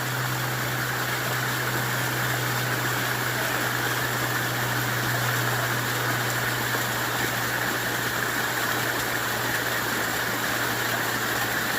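Creek water rushing steadily over rocks, an even unbroken noise.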